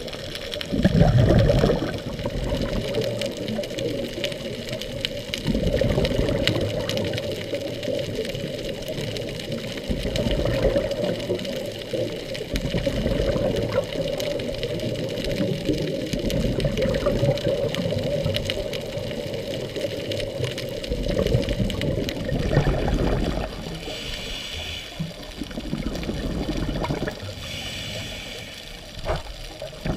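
Underwater scuba breathing: a diver's regulator exhaling bursts of bubbles, swelling about every five seconds over a steady rushing water noise.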